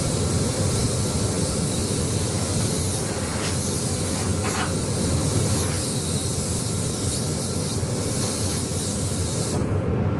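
Compressed-air paint spray gun hissing steadily as it sprays car paint, cutting off suddenly near the end when the trigger is released. A steady low rumble runs underneath.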